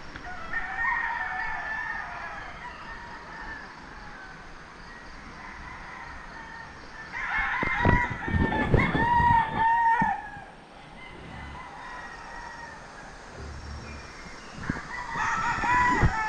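Roosters crowing one after another: a fainter crow near the start, a long loud crow about halfway through, and another crow near the end.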